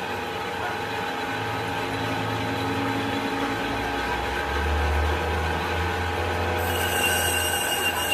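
A workshop machine running steadily with a low hum and several steady whining tones; the hum drops a little in pitch about halfway through, and a higher whine joins near the end.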